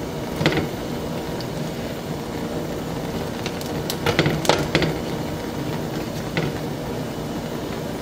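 Metal tongs clicking against a gas stove's grate while a dried chile is turned over the burner: once about half a second in, a quick run of clicks around four seconds in, and once more a little past six seconds. A steady hum runs underneath.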